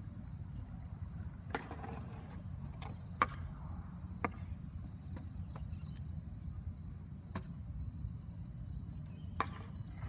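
Stunt scooter clacking on brick paving and a concrete kerb block: half a dozen sharp knocks spread through, the loudest about three seconds in, and two short rushes of scraping noise, one near two seconds in and one near the end, over a steady low rumble.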